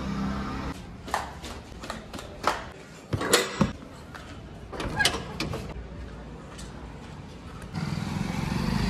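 Doors and latches being worked, with sharp clicks and knocks several times as a metal-framed glass door is pushed open and shut. Street traffic noise rises near the end.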